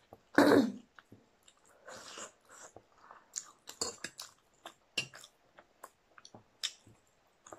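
Mouth sounds of eating Buldak black bean ramen noodles: slurping and chewing, with wet smacks and clicks. The loudest burst comes about half a second in.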